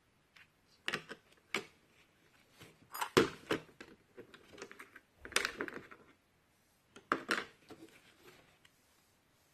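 Small hand tools from a smartphone repair kit being handled, clicking and rattling against each other and their case in several short bursts.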